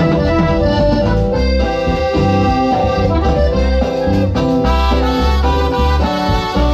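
Dance music led by an accordion playing sustained chords and melody over a steady, pulsing bass beat.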